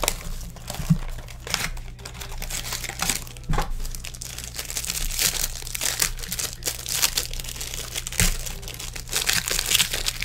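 Foil wrapper of a Museum Collection football card pack crinkling and crackling irregularly as it is opened by hand, with a few soft thumps of handling.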